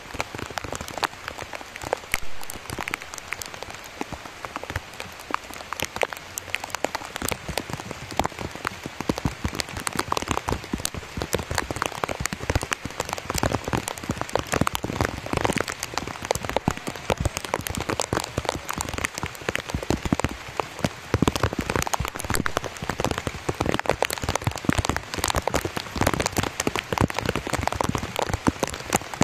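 Heavy rain falling, a dense, steady patter of close drop hits.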